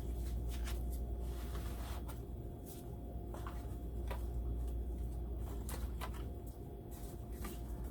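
Sheets of paper stickers being handled: scattered light rustles and ticks over a steady low hum.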